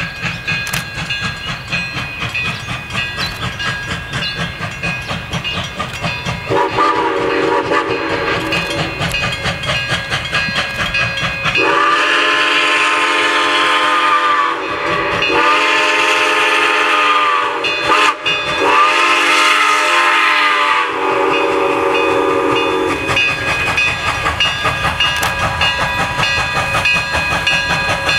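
Chinese-built QJ 2-10-2 steam locomotive approaching under steam, its exhaust and the train's running noise underneath. About a quarter of the way in, its chime steam whistle starts with a softer blast. It then swells into three loud long blasts, each about three seconds, and trails off.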